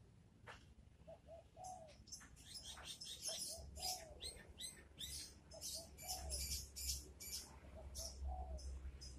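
A dove cooing in repeated three-note phrases, the last note drawn out and falling, about every two seconds, with small birds chirping over it.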